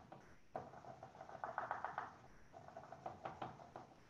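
Felt-tip marker scratching on paper in quick short strokes, several a second, coming in spurts: trees being scribbled into a drawing.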